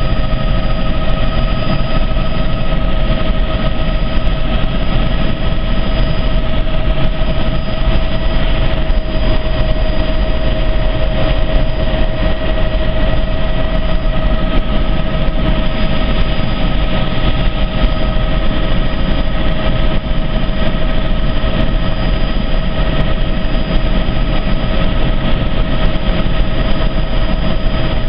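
Helicopter running steadily in flight: constant engine and rotor noise with a steady high whine over it.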